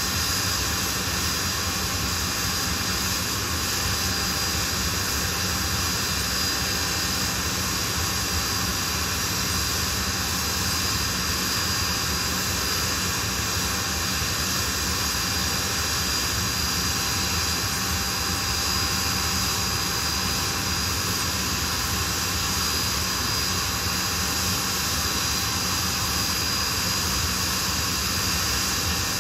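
Blackburn Buccaneer's twin Rolls-Royce Spey turbofans running steadily on the ground: a constant jet whine with a high, steady tone over a broad rush.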